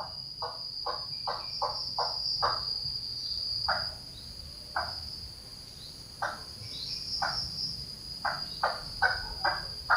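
A steady high-pitched insect drone, with a bird giving short calls over it in quick runs near the start and again near the end.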